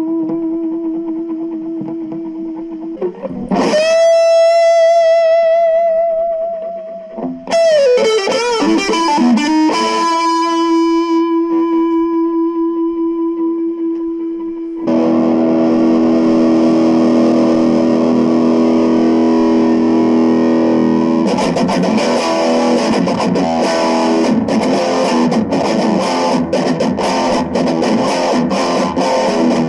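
Cort CR50 electric guitar played through a Cort MX15R amp. It starts with sustained single notes, one sliding up to a higher note held with wide vibrato and then back down. About halfway through come held chords, which turn into fast strummed chords a few seconds later.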